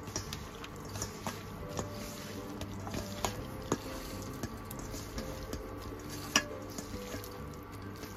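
A hand mixing raw chicken pieces with flour and spices in a stainless steel bowl: wet squishing with small clicks and knocks against the steel, the sharpest about three and a half and six and a half seconds in.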